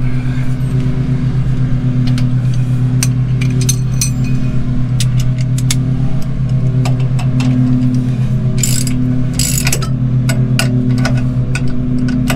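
Lawn mower engine running steadily, loud throughout with a slight pulse. Over it come scattered metallic clicks and clinks of wrenches on a shock absorber bolt, and two short ratcheting bursts about two-thirds of the way through.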